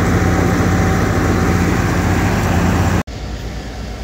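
Silage bagger with its rotor and feed conveyor running steadily under load, driven by the 2290 tractor's engine, as a forage wagon unloads chopped sorghum-sudan into it. About three seconds in it cuts off abruptly to a quieter steady hum.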